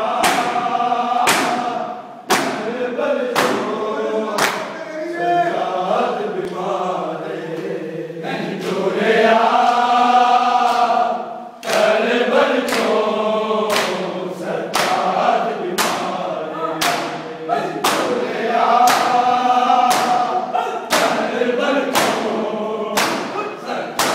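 A group of men chanting a noha in unison, over the sharp, rhythmic slaps of open-handed chest-beating (matam), about one beat every three-quarters of a second. The beating stops for a few seconds around the middle while the chant holds on, then resumes.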